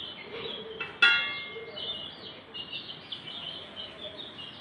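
Small birds chirping repeatedly in short high calls. About a second in there is a single sharp metallic clink that rings briefly, like a knife or utensil striking a steel pot.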